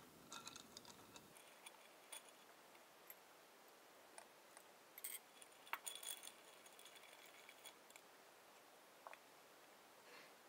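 Faint, scattered clinks and ticks of a rod stirring ice in a glass beaker, with a small cluster of them about five to six seconds in.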